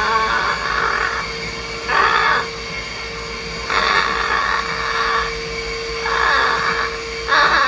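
Amazon parrot giving about five short squawking calls and chatter bursts over the steady hum of a running vacuum cleaner, the noise that sets the bird vocalising.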